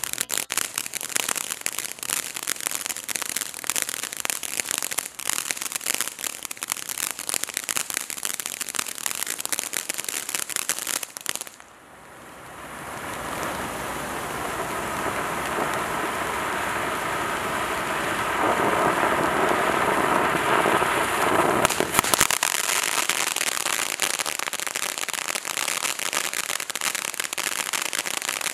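Black Cat Illuminati fountain firework burning. It gives dense crackling for the first eleven seconds or so, dips briefly, then shifts to a steady hissing gush of sparks that grows louder for about ten seconds. Dense crackling returns in the last six seconds.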